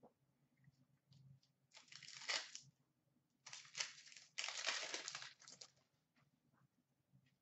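Wrapper of an Upper Deck Series 2 hockey card pack being torn open and crinkled, in three rustling bursts from about two to six seconds in.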